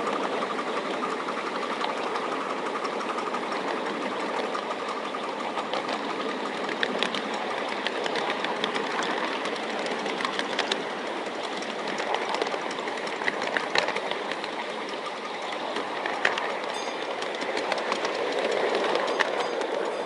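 Miniature railway train running along the track, heard from the driver's seat: a steady running noise with scattered sharp clicks of the wheels over the rail joints, growing a little louder near the end.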